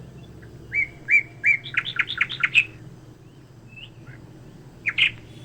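Small bird chirping: a quick series of high, short chirps about a second in, then a couple more near the end.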